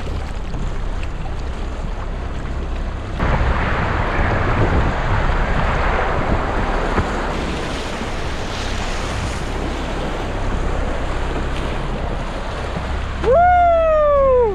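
Wind and choppy river water splashing against a kayak's hull while it is paddled, with wind buffeting the microphone; the rush grows louder about three seconds in. Near the end a loud whoop rises briefly and then falls in pitch for about a second.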